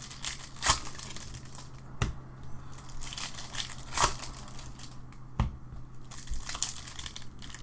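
Foil trading-card pack wrapper crinkling and tearing as it is opened, with sharp crackles every second or two.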